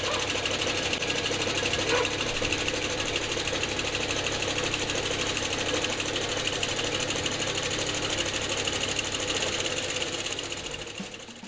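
Skid steer running a 9-foot sickle bar mower, the reciprocating knife chattering rapidly and steadily over the engine; it fades out near the end.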